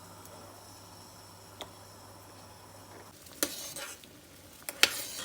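Kitchen stirring: a steady faint hiss, then from about three seconds in a utensil scraping and clinking, with a few sharp clinks near the end.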